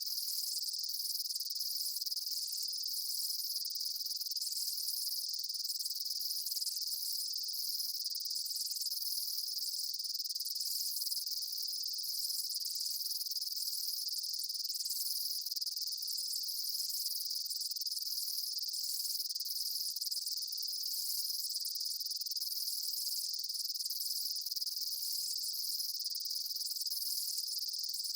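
Daytime field insect chorus: a steady high-pitched trill with a higher, pulsing layer that repeats about every two seconds.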